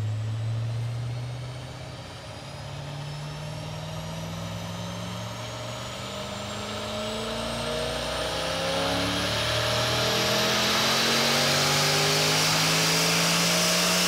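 Audi RS6 C7 4.0 TFSI V8, converted to a single Garrett G42-1200 turbo, on a full-throttle chassis-dyno pull. The revs climb steadily toward about 7000 rpm, a high whine rises in pitch with them, and the sound grows louder throughout.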